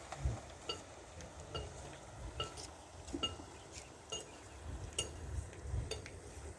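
About eight short ringing metallic clinks, evenly spaced a little under a second apart, over a steady low rumble.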